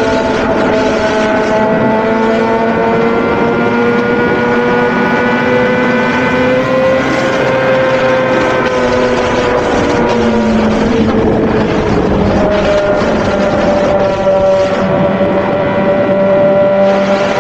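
Suzuki GSX-R1000 inline-four engine running steadily under way, with wind rushing over the microphone. The pitch wavers slowly, dips about ten seconds in, and settles a little higher a couple of seconds later.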